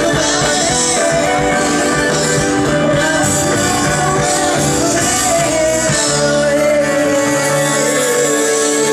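Live band music with a male singer: guitar and band playing under the sung melody, with a long held vocal note near the end.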